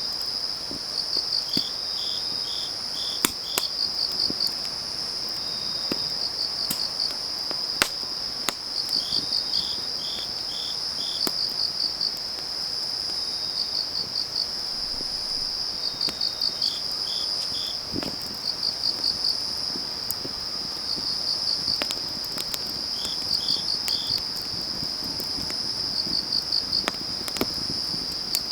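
Autumn crickets singing: a steady high trill, with chirps in short groups of four or five pulses repeating every couple of seconds. Over it, a wood fire crackles with scattered sharp pops.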